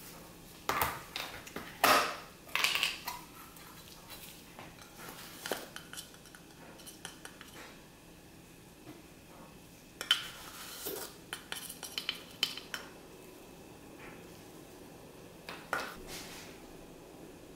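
Metal measuring spoon clinking and tapping against a stainless steel mixing bowl and a baking powder tin while spoonfuls of leavening go in, in three clusters of sharp clinks: near the start, in the middle and near the end.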